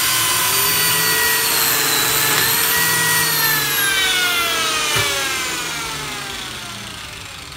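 Lamello Zeta P2 joiner motor running at full speed with a high whine that dips slightly in pitch a couple of times while it cuts into MDF. About four seconds in it is switched off and spools down, the whine falling steadily in pitch and fading. There is a single click about a second later.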